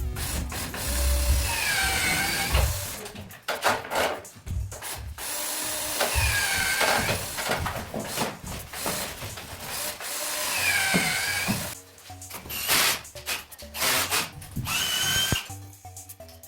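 Power drill running in short bursts, its motor whine dipping and rising in pitch with each run, over background music.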